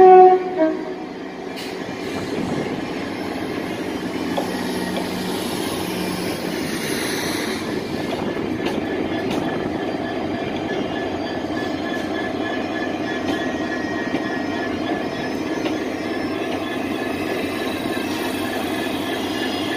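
A train on the rails: two short horn blasts at the start, then a steady rumble of the train running, with a thin wheel squeal from about eight seconds in.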